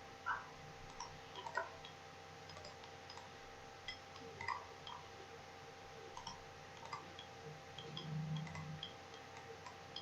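Computer mouse clicking now and then, short irregular clicks as edges are selected one by one, over a faint steady hum.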